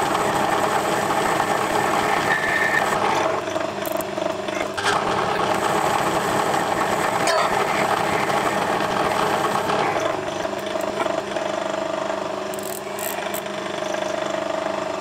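Small metal lathe running steadily as the tool turns a mild steel crankshaft piece down to diameter, with a couple of single clicks. The spindle has stopped near the end.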